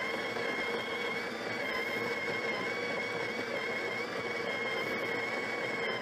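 Breville Barista Touch Impress espresso machine's built-in conical burr grinder grinding coffee beans into the portafilter at grind setting 18. It makes a steady motor whine with a gritty grinding noise underneath.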